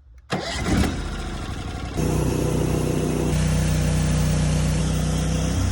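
Sawmill's gas engine running. About two seconds in the sound changes abruptly to a steady, even hum.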